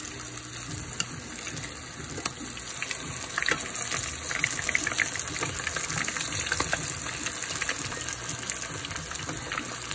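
Coated fish fillets deep-frying in hot oil in a pan: a steady, dense sizzle and crackle of bubbling oil. A few brief clicks of metal tongs come about three to four seconds in.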